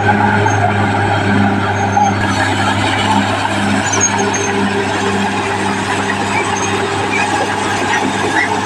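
Caterpillar D6R XL bulldozer's diesel engine running steadily with a constant low hum and a faint pulsing beat, with occasional short high squeaks over it.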